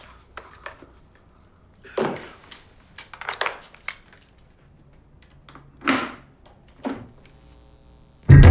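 A few sharp thumps and clicks, then a faint steady buzz from a vintage Gretsch Sonax 530B tube amp, the buzz the amp is being tested for. Near the end a bass guitar is played loudly through the amp.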